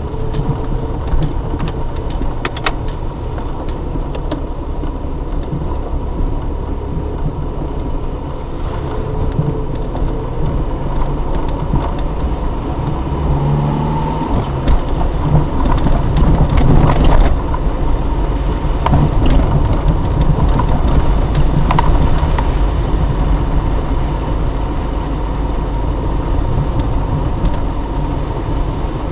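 Car driving on a snow-packed road, heard from inside the cabin through a dashcam's microphone: a steady low rumble of engine and tyres, with scattered clicks and rattles and a faint steady high whine. The rumble grows louder for a few seconds about halfway through.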